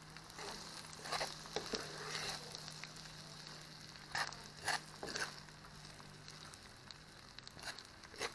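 Vegetables in coconut milk sizzling and bubbling in a frying pot, with a spoon stirring and scraping against the pan in short strokes about a second in, around the middle, and near the end.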